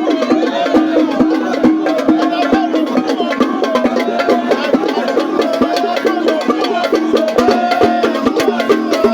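Music with fast, busy percussion like wood blocks and drums over a wavering melodic line.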